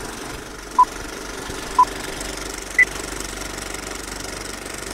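Film countdown leader sound effect: an old film projector's steady, rapid clatter, with three short beeps a second apart, the first two at one pitch and the third higher.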